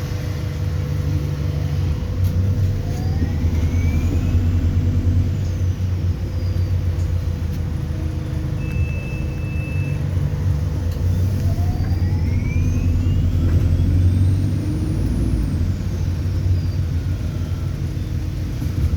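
ADL Enviro400 Hybrid bus heard from on board: a low steady drone with a whine that rises in pitch as the bus pulls away, twice, about three seconds in and again around eleven seconds, the second climbing higher before falling away. A short single-tone beep sounds about nine seconds in.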